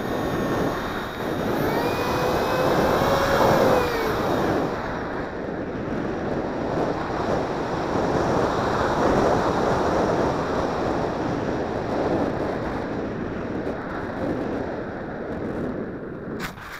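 Electric ducted fan of an RC flying wing whining under wind rush, its pitch gliding up and then down over the first few seconds. The whine then fades, leaving mostly wind rushing over the onboard microphone, with a sharp knock near the end.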